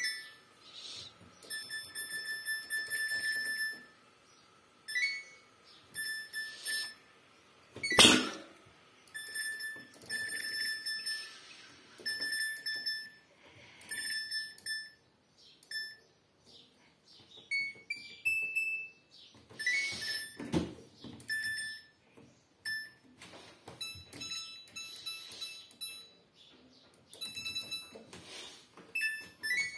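Front-loading washing machine control panel beeping again and again as the program dial is turned and its buttons are pressed, in an attempted button sequence for service mode, with a short rising chime partway through. A sharp knock about eight seconds in and a duller thump about twenty seconds in.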